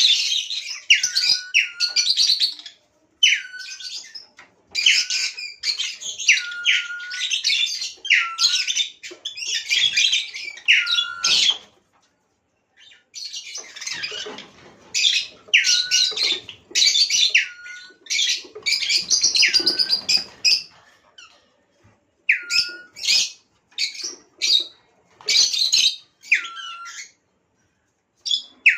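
Lutino lovebirds chattering: rapid, shrill high chirps, many of them ending in a short falling note, broken by two brief pauses, one near the middle and one about two-thirds through.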